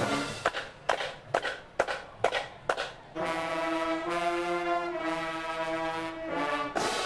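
High school marching band playing: about three seconds of short accented hits from the band, roughly two a second, then a long held brass chord, cut off and followed by a brief chord.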